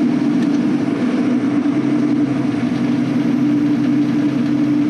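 Steady drone of a semi truck's engine and road noise, heard inside the cab while cruising on the highway.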